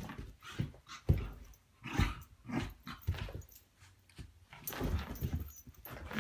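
Two dogs meeting up close: a run of irregular scuffles and short dog sounds, a few each second.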